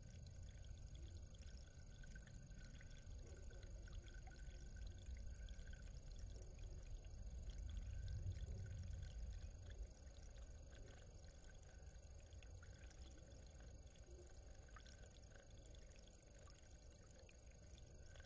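Faint low rumble that swells about halfway through, with light ticks and small water splashes from a Eurasian blue tit bathing in a shallow pool.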